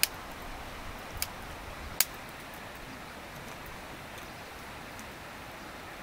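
Steady outdoor background hiss with three sharp clicks or taps within the first two seconds.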